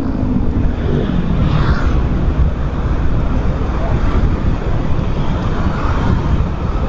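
Steady wind rush over the microphone with road and engine noise from a motorcycle riding along a road.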